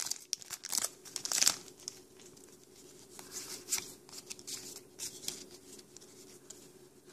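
Foil Pokémon booster pack wrapper crinkling as it is pulled open, loudest in the first second and a half. Then softer rustling and light clicks as the trading cards are slid out and handled.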